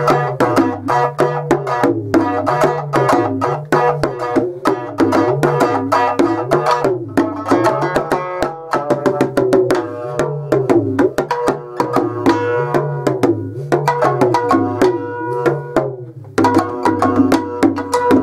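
Shamisen and talking drum played together in an improvised duet: quick plucked shamisen notes and sharp drum strokes over a low pitch that rises and falls again and again. Both thin out briefly near the end, then start up again.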